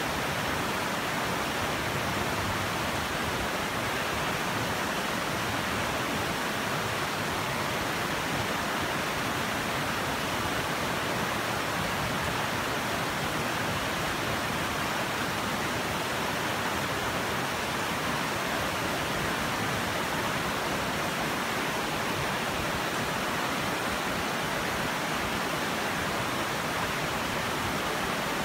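Shallow river rushing over rocks and boulders in rapids: a steady, unbroken rush of water.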